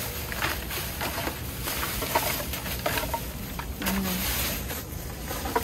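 Thin plastic trash bag rustling and crinkling as hands rummage through it, with scattered light knocks of the containers inside.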